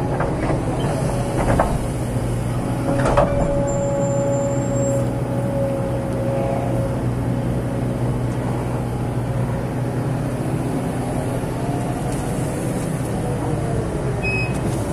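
Kobelco SK200-8 excavator heard from inside the cab: the diesel engine runs steadily under working load while the hydraulics whine, rising and falling as the arm and bucket swing, with a few sharp knocks in the first three seconds.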